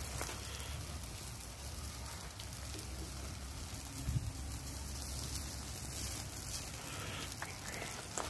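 Open wood fire crackling and hissing under a whole pig turning on a spit, with a steady low hum underneath and a brief bump about four seconds in.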